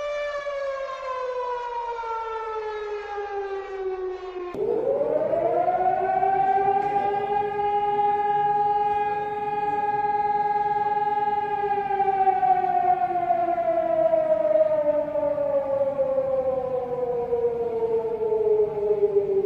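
Civil defense siren wailing: a falling tone that breaks off about four and a half seconds in, then a new wail that climbs quickly, holds steady for several seconds and winds slowly down in pitch near the end.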